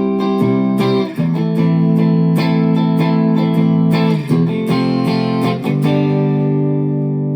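Chapman ML1 Modern Standard electric guitar playing a tune of held chords, changing about every one to three seconds, the last chord left to ring out near the end.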